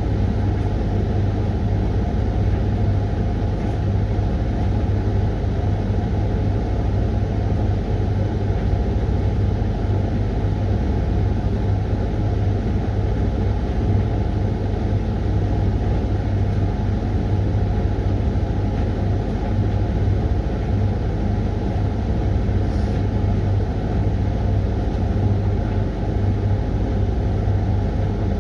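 Hoover laundry machine running its 20-minute Refresh programme, a steady, unbroken motor and drum hum with a strong low drone that does not pause or change.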